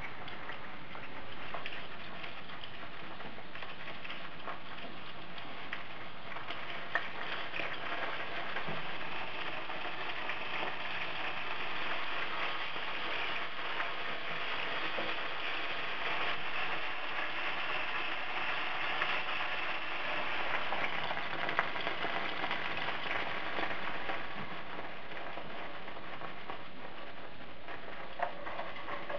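Spring rolls sizzling in hot oil in a frying pan: a steady crackling hiss, strongest in the middle and easing off near the end. A few sharp clicks come from chopsticks turning the rolls against the pan.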